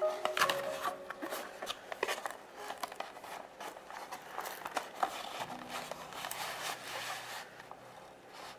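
Cardboard packaging of a model-aircraft box being handled: the outer sleeve slid against the inner box, with irregular scraping, rubbing and light clicks and taps.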